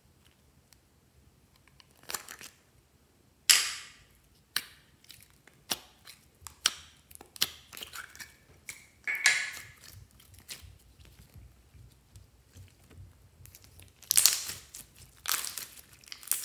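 A small plastic slime container being handled and opened, with sharp clicks and snaps, the loudest a few seconds in. Then clear glitter slime is worked out of it and squeezed between the fingers in short squishy, crackling bursts, loudest near the end.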